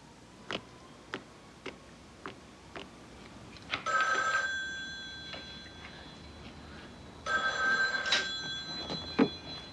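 Telephone bell ringing twice, each ring lasting about a second, about four and seven seconds in. Before the rings there are light, regular clicks, about two a second.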